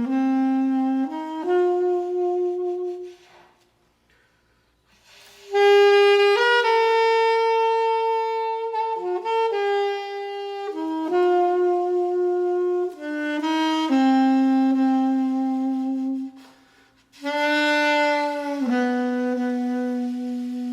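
Solo saxophone playing a slow, meditative melody of long held notes, one line alone without accompaniment, pausing twice between phrases.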